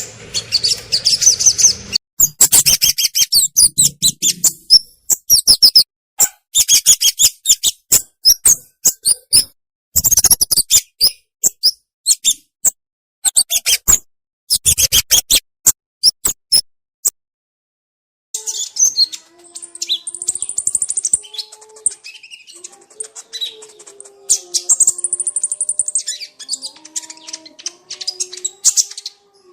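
Recorded songs of small songbirds spliced together as masteran training audio: fast, high-pitched chirping and trilling phrases with abrupt cuts and short silent gaps between clips. From about two-thirds in, high trills run over a lower line of stepping notes.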